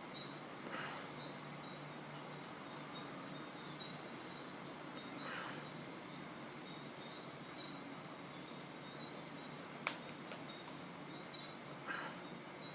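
Faint, steady high-pitched trilling or whine, with a few soft rustles and one sharp click about ten seconds in.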